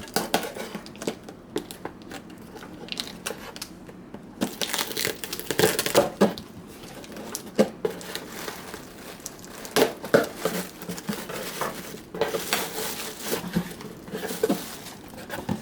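Knife cutting the tape on a cardboard shipping box, and the box being opened and its packing handled: irregular scraping and rustling with sharp clicks, busiest about five seconds in and again near the end.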